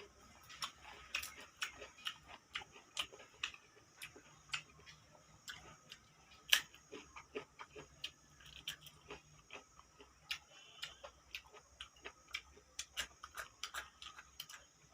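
Close-miked chewing and mouth sounds of a person eating: irregular soft clicks and smacks, several a second, with one louder click about six and a half seconds in.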